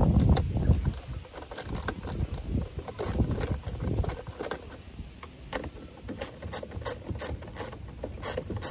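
Hand ratchet with a 10 mm socket clicking in short, irregular runs as the side mirror's mounting nuts are run down inside the door. A low handling rumble fades out in the first half-second.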